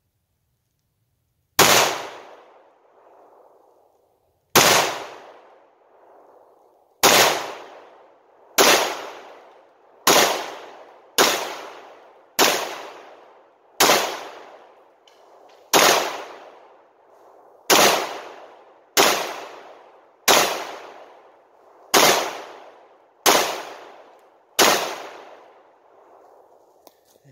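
Glock 19 Gen 4 9mm pistol fired in slow, steady succession: fifteen single shots, about one to three seconds apart, each trailing off in a ringing echo.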